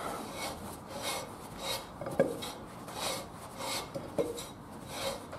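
Cast-iron rear brake drum being twisted and pushed onto the hub by hand, rasping against the new brake shoes in repeated short scrapes about two a second, with two sharp metallic clinks around two and four seconds in.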